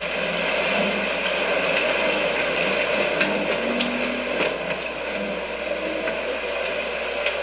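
Bass boat motor running steadily at low speed.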